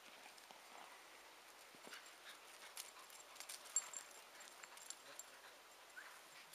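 Faint scattered taps and scuffs from a whippet's paws and a soccer ball being nudged across grass, with one sharper knock a little past the middle.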